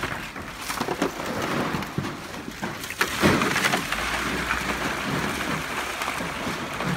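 Water pouring from plastic jerry cans onto ice in a plastic trough, a steady splashing wash, with a couple of short knocks about three seconds in.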